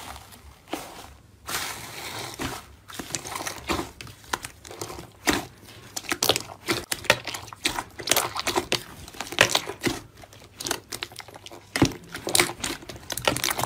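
Crunchy slime being squeezed and pressed by hand, giving a dense, irregular run of sharp crackles and clicks.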